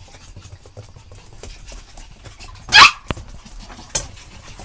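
Puppies scuffling on a hard floor, with small clicks and scrapes throughout, and one short, loud, high yelp about three seconds in.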